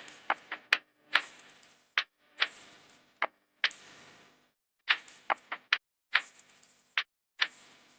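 A series of irregular sharp clicks and taps, about fifteen in eight seconds, some with a short fading tail.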